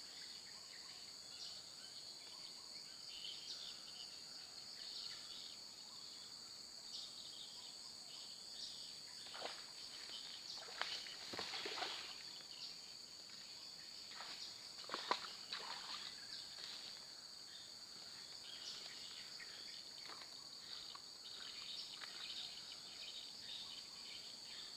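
Steady high-pitched chorus of insects, likely crickets, with scattered faint clicks and rustles; a few louder ones come about halfway through.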